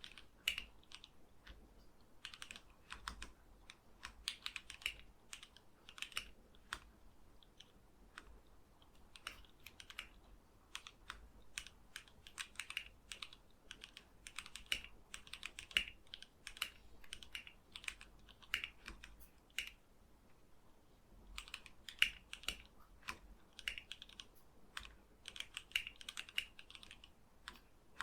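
Typing on a plateless 60% mechanical keyboard with lubed, filmed linear Gateron KS-3 Black switches, ABS keycaps and a wooden gasket-mount case: a fast run of key clacks, with short pauses about a third of the way through and again about three-quarters through.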